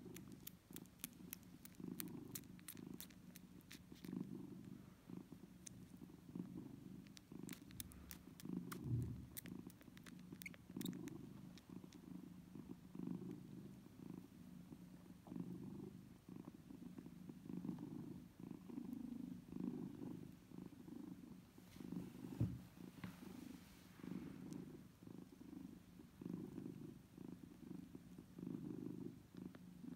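Cat purring, a low throb in pulses about a second apart, while newborn kittens nurse, with trains of small clicking suckling sounds at the start and again about a third of the way in.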